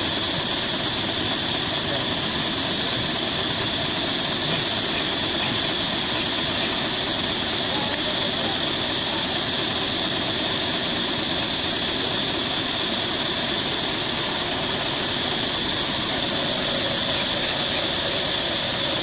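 Steady, high-pitched droning of cicadas, unbroken throughout, with faint voices underneath.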